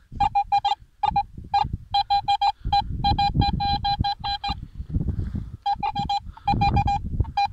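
Metal detector beeping in bursts of short, same-pitched tones as its search coil is swept over a dug hole, signalling a buried metal target; the beeps come fastest about three to four and a half seconds in. A low rumbling noise runs underneath at times.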